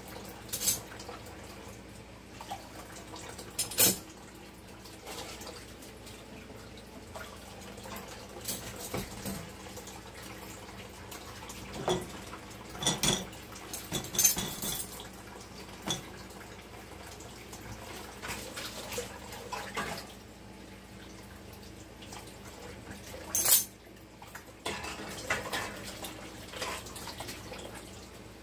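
Dishes, pans and cutlery clinking and clattering as they are washed at a kitchen sink and loaded into the rack and cutlery basket of a countertop dishwasher, with some water at the sink. The sharpest clatters come about four seconds in and again a few seconds past the middle.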